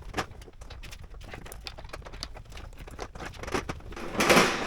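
Workshop handling noises from taking off a motorcycle fairing: a run of small clicks and taps of tools and parts, then a louder scraping rush about four seconds in.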